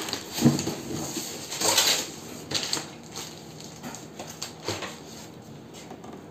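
Cardboard box and plastic wrapping being handled while a vacuum pump is unpacked: rustling and crinkling, with sharper knocks about half a second in and just before two seconds in, and a few smaller ones later.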